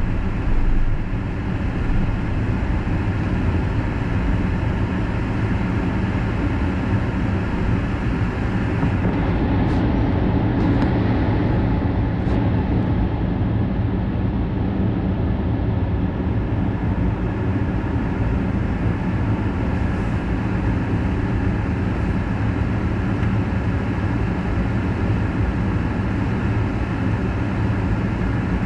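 Steady road and engine noise of a car driving on an expressway, heard from inside the cabin: a continuous rush of tyre and wind noise over a low engine hum.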